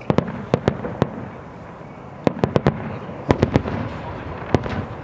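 Aerial fireworks bursting: sharp bangs in quick irregular clusters of two to four, about a dozen in all, over a steady background din.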